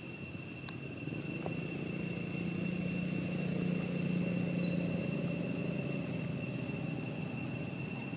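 Low engine rumble, as of a distant passing vehicle, swelling a couple of seconds in and easing off near the end, over a steady high-pitched tone.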